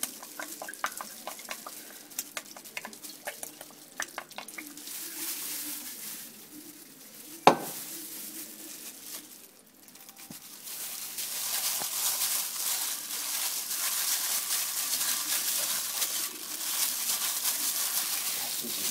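Seasoning liquid poured over salted raw silver carp pieces in a pot. Scattered light clicks of handling come first, then one sharp click about seven seconds in, then a steady hissing splatter through the last several seconds.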